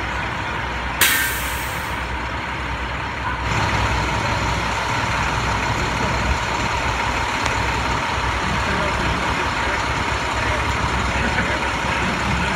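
Idling fire trucks and emergency vehicles running steadily, with a sharp air-brake hiss about a second in that lasts about a second; the rumble gets louder a couple of seconds later.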